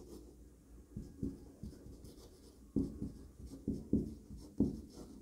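Marker pen writing on a whiteboard: a series of short, irregular strokes as letters are written, more frequent and stronger from a little before halfway through.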